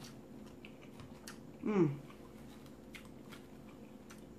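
Light clicks of a metal fork on a ceramic plate while an omelette is cut and a bite is lifted, with faint chewing. About two seconds in there is a short falling vocal sound from the eater, the loudest moment.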